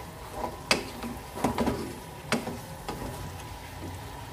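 A wooden spoon stirring meat and kachnar buds in a black non-stick pan, knocking against the pan about four times in the first two and a half seconds, over a faint sizzle of the cooking food.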